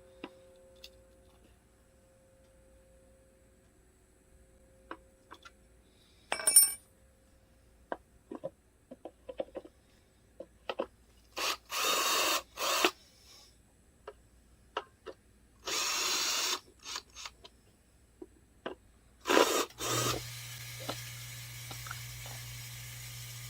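Cordless drill backing out the belt-cover bolts on a Hilti 700 concrete saw in a few short runs of about half a second to a second, between clicks, knocks and a metallic clink of parts and tools being handled. A steady low hum starts near the end.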